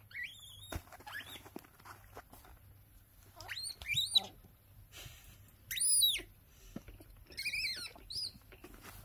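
Baby vervet monkeys squealing at a plate of food: a series of short, high, arching squeals, the loudest about six seconds in. A sharp click sounds near the start.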